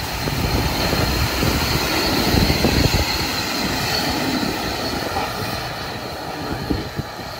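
A vehicle engine running with a steady drone that eases off slightly near the end.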